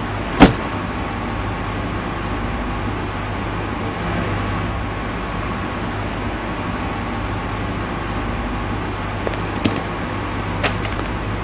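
A single sharp knock about half a second in, over a steady low hum with a faint high tone. Near the end come a few light clicks as a plastic toolbox is handled.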